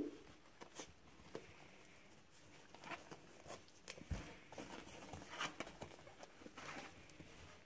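Faint, scattered scuffs and light taps of young puppies scrabbling and tussling on a padded mat, with one dull thump about four seconds in.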